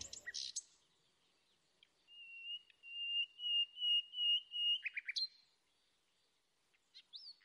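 Songbird calling: a clear high note repeated about three times a second for nearly three seconds, followed by a few quick chirps and, near the end, a short rising chirp.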